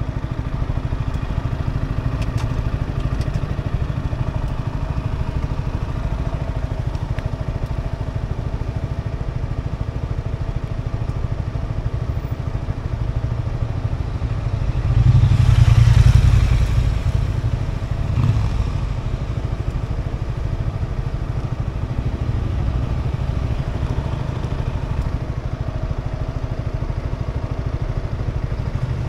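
Yamaha R125's single-cylinder 125 cc four-stroke engine idling steadily while stopped in traffic. About halfway through, a louder rush swells and fades.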